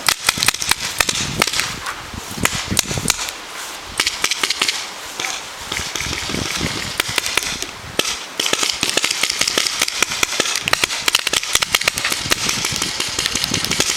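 Paintball markers firing: many sharp pops in quick, irregular succession, several a second, thinning out briefly a few seconds in and again about halfway through.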